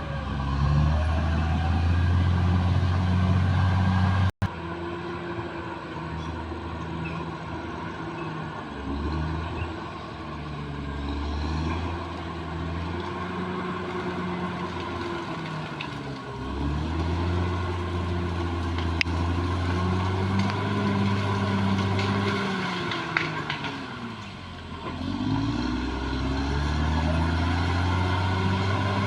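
Caterpillar D6R bulldozer's diesel engine working under changing load, its pitch sagging and recovering several times. The sound drops out briefly about four seconds in, and there are a few sharp metallic clicks later on.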